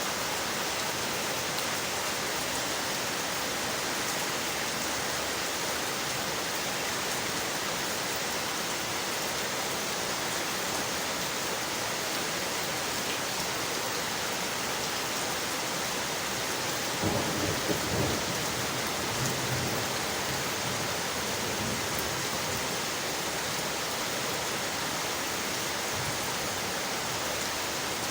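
Steady rain falling on window glass, an even hiss of drops. About two-thirds of the way through, a low rumble swells for two or three seconds.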